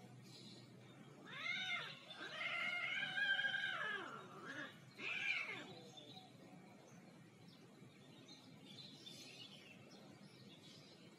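Female cat in heat yowling as a mating ends: a short cry, then a long rising-and-falling yowl of about two seconds, then two brief cries, all over about six seconds in.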